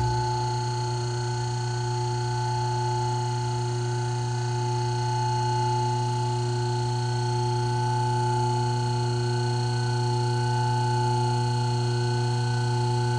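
Hydraulic hose crimper's electric pump motor running with a steady hum, closing the crimper; it switches on abruptly and runs unchanged for about thirteen seconds.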